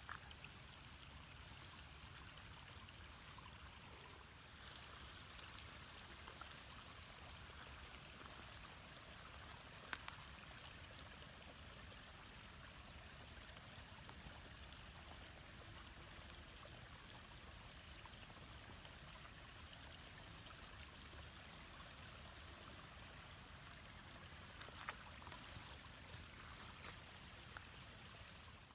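Faint, steady rushing noise like running water, with a few soft clicks about ten seconds in and near the end.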